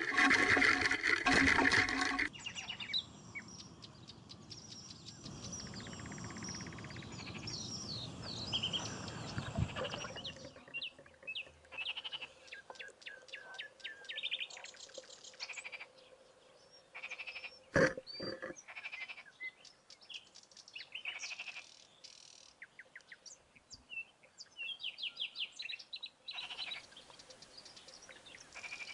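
Songbirds chirping and trilling in short repeated phrases, with a louder burst of noise in the first two seconds and a single sharp click about 18 seconds in.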